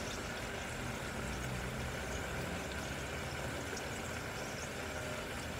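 Steady stovetop cooking noise as beef simmers in a pot on a gas stove: an even low hum with faint crackles above it.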